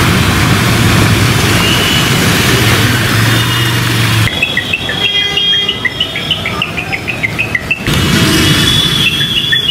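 Vehicles driving through a flooded street: tyres swishing through water over a steady engine hum, which cuts off suddenly about four seconds in. Rapid repeated bird chirps follow, and street noise returns under them near the end.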